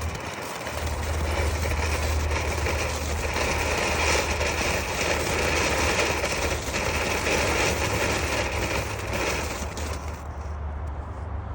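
A firework, set off by an electric igniter clip, burning with a steady hiss for about nine seconds, then dying away near the end over a steady low rumble.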